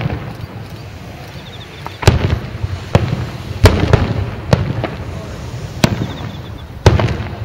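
Aerial firework shells bursting: a boom at the start, a lull, then six sharp booms about a second apart from around two seconds in. Each boom trails off into a low rumble.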